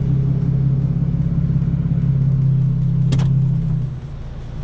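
Straight-piped Hyundai Genesis Coupe's 3.8 V6 exhaust running steadily at low revs, a constant drone without revving. A sharp click about three seconds in, and the engine sound drops off somewhat just before the end.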